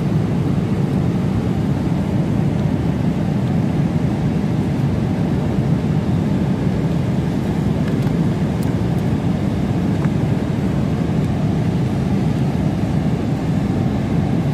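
Steady low rushing drone of an airliner's cabin in flight, engine and airflow noise heard from inside the cabin.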